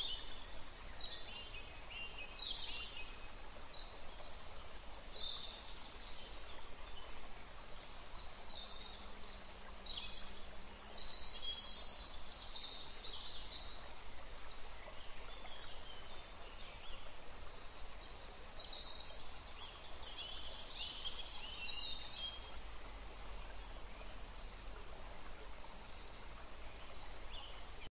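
Small birds chirping and twittering over a steady background hiss. Their short, high calls come in several busy bursts with quieter gaps between.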